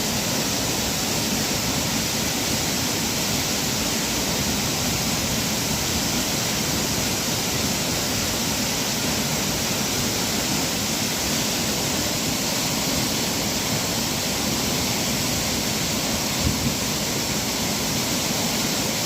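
Waterfall rushing: a steady, loud roar of falling water, unchanging throughout.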